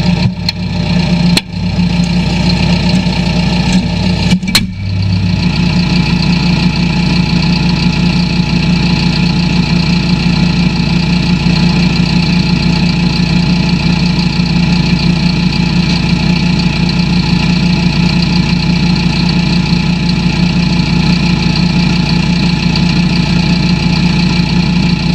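John Deere tractor engine running steadily, heard from inside the cab. There are two sharp knocks, about a second and a half and four and a half seconds in.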